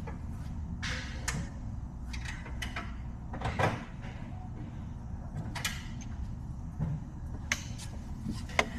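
Metal hand tools clinking and scraping as a socket extension is picked out and fitted, a handful of scattered clicks and knocks over a low steady hum.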